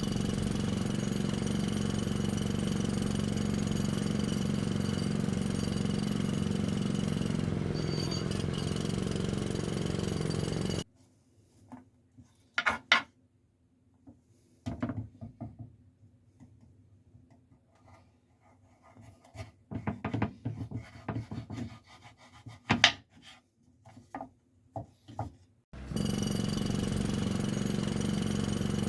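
A small electric motor runs with a steady hum and cuts off abruptly about eleven seconds in. Then come scattered knife knocks on a cutting board while the vegetables are chopped, until the steady motor hum starts again abruptly near the end.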